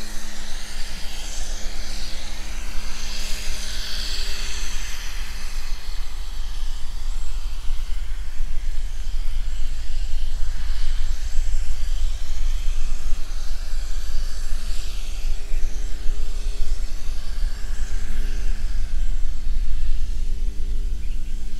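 Boeing 787-9 airliner's jet engines on final approach: a steady rumble with a hiss that swells and eases, slowly growing louder as the plane comes closer.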